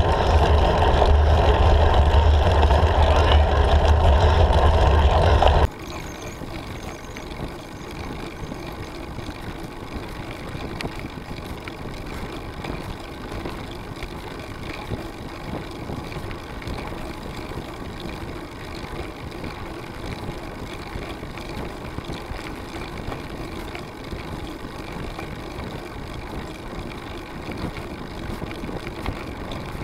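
Wind buffeting the microphone of a camera on a moving road bike, a loud low rumble that cuts off abruptly about six seconds in, followed by a quieter, steady rush of riding noise.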